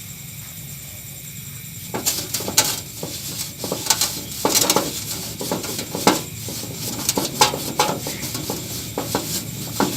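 Metal tools and parts clinking, knocking and scraping in an irregular run, starting about two seconds in after a faint steady hiss.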